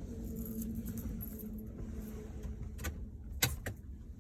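Handling noise: a steady low rumble with three short sharp clicks near the end, the middle one the loudest.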